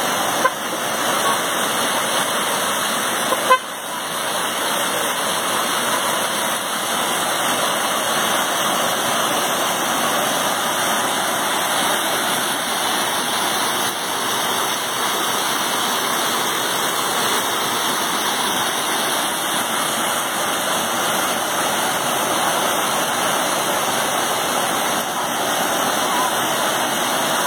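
Rushing water making a steady, even noise, as of a waterfall or fast-flowing river, with two brief knocks in the first few seconds.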